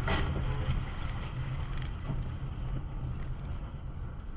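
Driving noise inside a car picked up by a dashcam: a steady low rumble of engine and tyres on the road, easing slightly toward the end.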